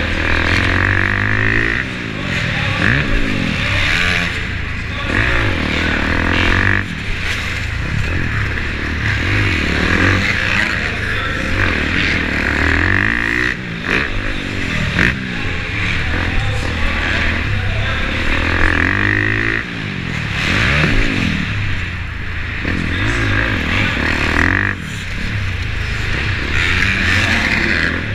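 Motocross bike engine heard from on board, revving up and falling off again and again as the rider accelerates, shifts and brakes through the corners and jumps.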